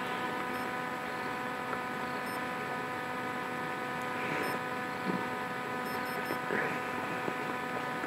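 A steady electronic hum made of several even pitches, with a few faint soft sounds of movement about four and a half and six and a half seconds in.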